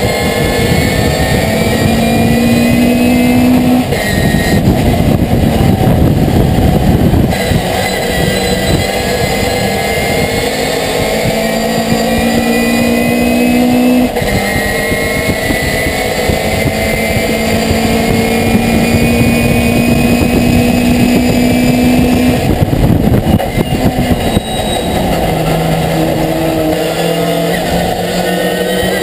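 Pickup race truck's engine heard from inside the cab at racing speed. Its note climbs slowly and drops back sharply three times, about 4, 14 and 22 seconds in, with a rough rumbling stretch just after the first drop.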